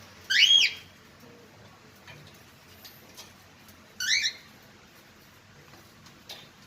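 Budgerigar giving two loud chirps: an arching call about half a second in and a quick run of short rising notes about four seconds in, with faint clicks between them.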